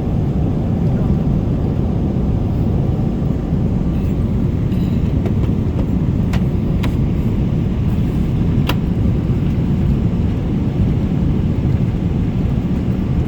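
Steady low rumble of a vehicle in motion, with three brief sharp clicks a little past the middle.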